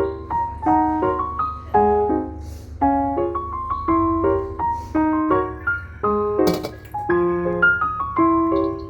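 Background music: a light, bouncy piano melody of quick notes.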